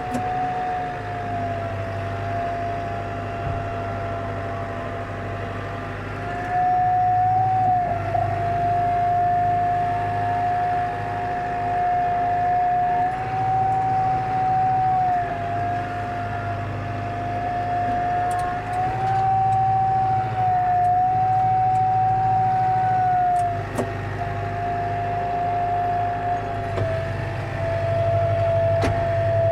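Tractor pulling a grass slitter and rake, engine running steadily under a strong high whine from its drivetrain that rises and falls slightly in pitch as the engine speed shifts, growing louder about six seconds in.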